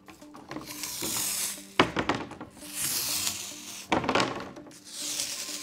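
Glue-type splitboard climbing skin being peeled off the board's base: a tearing hiss in three pulls, with a sharp knock twice. Faint background music runs underneath.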